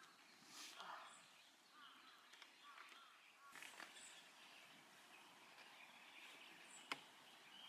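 Near silence outdoors, with a few faint bird chirps in the first few seconds and a single sharp click about seven seconds in.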